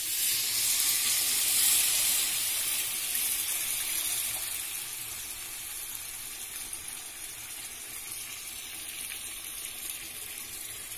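Tamarind water poured into a hot pan of oily fried onion-garlic-tomato masala. A loud sizzling hiss bursts up the moment the liquid hits and peaks within about two seconds. Over the next few seconds it settles into a quieter, steady sizzle.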